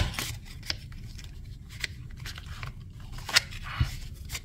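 A deck of tarot cards being handled and slid into its cardboard tuck box: papery scraping and a few sharp taps, the loudest at the start and about three and a half seconds in, then a duller knock.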